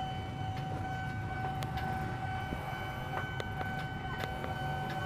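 Railway level-crossing warning alarm sounding one unbroken steady tone over a low rumble, with a few faint clicks.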